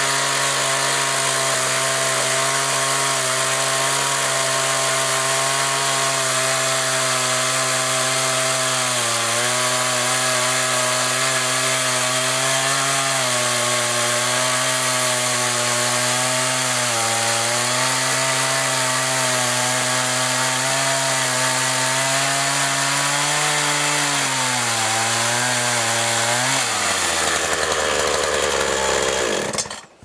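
Partner two-stroke chainsaw running at high revs while cutting slots down into an upright log, its pitch dipping briefly several times. Near the end the revs fall away as the throttle is released, and the sound cuts off suddenly.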